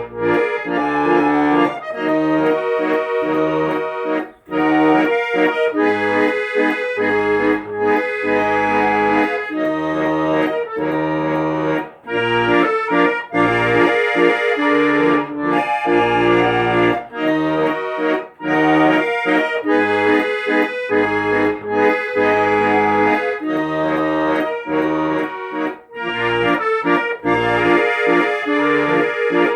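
Accordion music: an instrumental passage of held melody notes over rhythmic bass notes, with no singing.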